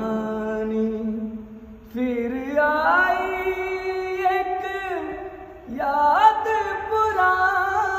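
A solo voice singing a Hindi song in long held, wavering notes, three drawn-out phrases with short breaths between them and no clear words.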